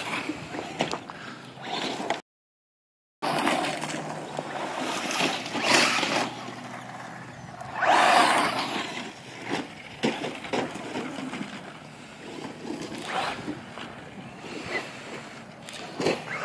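Small remote-control toy car driving over the ground, its motor and wheels a rough, scraping noise with a few louder rushes, the biggest about eight seconds in. The sound cuts out completely for about a second, about two seconds in.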